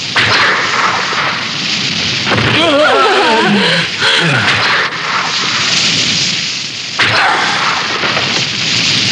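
Cartoon fire-and-blast sound effects: a loud rush of noise that starts suddenly, with a wavering tone gliding downward about three seconds in and a fresh blast about seven seconds in.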